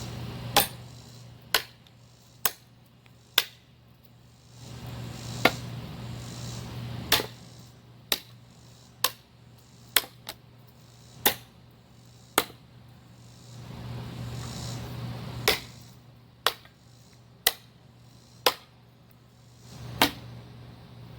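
Hammer blows in a steady rhythm, about one a second: sharp knocks with little ring, with a few spells of hiss between them.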